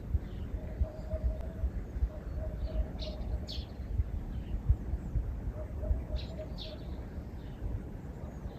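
Small birds giving short chirps, a pair about three seconds in and another pair about six seconds in, over a steady low outdoor rumble.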